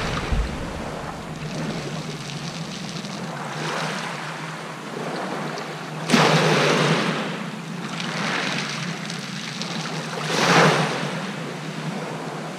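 Small waves breaking and washing up a shingle beach, coming in surges every couple of seconds; the loudest starts suddenly about six seconds in, and another swells about ten and a half seconds in.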